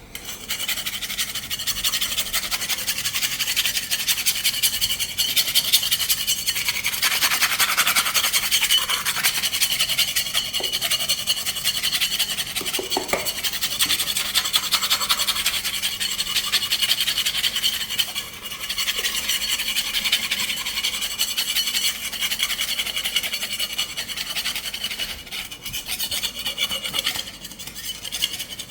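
A scraper being worked over a plastered wall, scraping off the old skim coat in continuous scraping strokes, with a short break about two-thirds of the way through.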